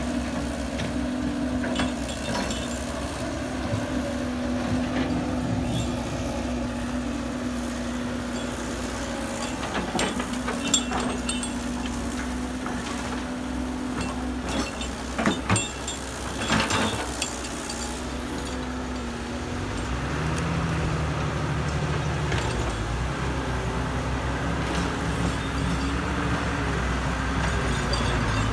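Diesel engine of heavy construction machinery running steadily, with a few sharp metallic clanks in the middle. A lower engine note comes in about two-thirds of the way through and holds.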